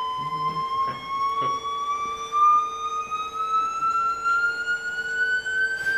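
A single pure tone sounded by a high-voltage plasma flame acting as a speaker, fed by an amplifier-modulator, gliding slowly and steadily upward in pitch like a frequency sweep. A fainter steady lower hum runs beneath it.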